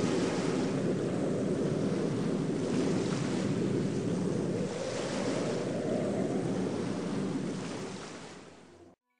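Stormy sea: waves surging and wind rushing in slow swells, fading away near the end.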